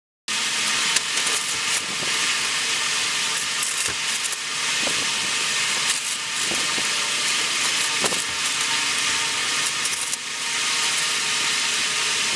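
Clear plastic wrap crinkling and rustling as it is pulled off a crankshaft, with scattered sharp crackles over a steady hiss.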